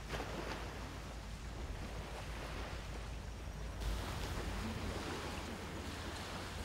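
Sea waves washing on a beach, with wind rumbling on the microphone. It is a steady, even wash that gets a little brighter about four seconds in.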